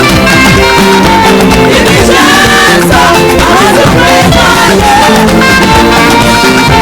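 Loud live praise music from a band with a saxophone lead, playing held notes that bend and glide over a steady beat.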